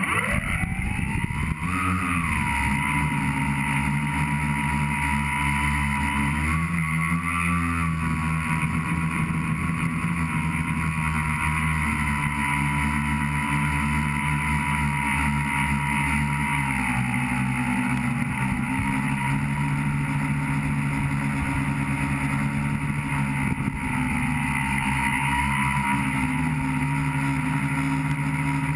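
Tricopter's three electric motors and propellers spinning up from rest, the whine climbing in pitch over the first two seconds. It then holds a steady buzzing whine through flight, with small shifts in pitch as the throttle changes, heard close up from the onboard camera.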